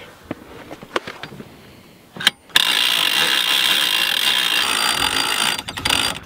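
Wheel lift and hitch jack of a wheeled ice-fishing house being worked to raise it off the ice: a loud, steady mechanical noise that starts about two and a half seconds in, after a few faint clicks.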